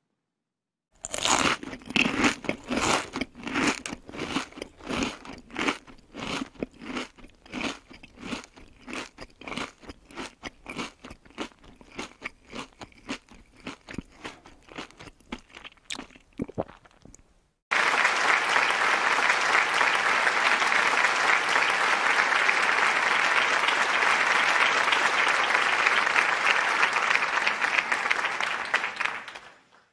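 Sharp, irregular crackling clicks that thin out and grow quieter over about sixteen seconds. Then, abruptly, a loud steady hiss like static, which fades out near the end.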